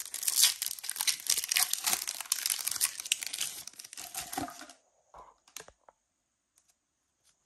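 Foil wrapper of a Pokémon card booster pack crinkling and tearing as it is pulled open by hand, stopping about four and a half seconds in, followed by a few faint ticks.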